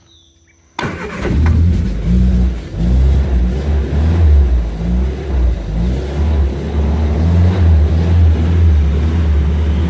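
1970 Triumph Spitfire's four-cylinder engine starting about a second in, then running cold with uneven revs through the stock exhaust manifold, pre-muffler and factory muffler.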